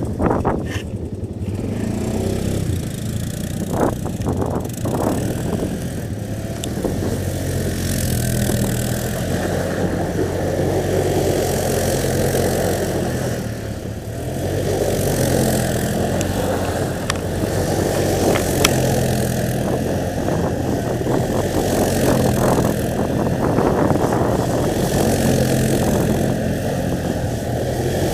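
ATV engines running: one idling steadily close by, with another ATV's engine running as it spins donuts in circles on snowy dirt.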